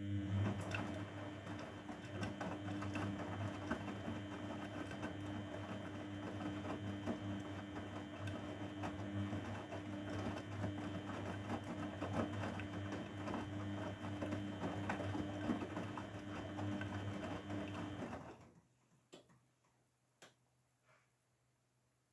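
Grundig Mini 14 washing machine running, a steady hum with a busy rattle, in a rinse cycle. It stops abruptly about eighteen seconds in, followed by a few faint clicks.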